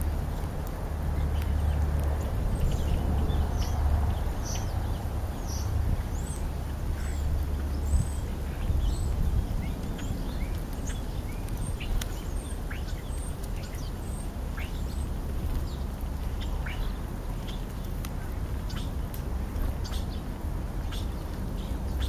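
European starlings calling: many short chirps and whistles, some sliding up or down in pitch, scattered throughout over a steady low rumble.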